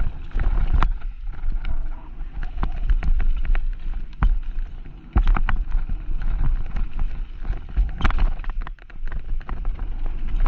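Mountain bike riding down a rough trail, with wind rumbling on the microphone and the bike clattering in irregular sharp knocks and rattles over bumps.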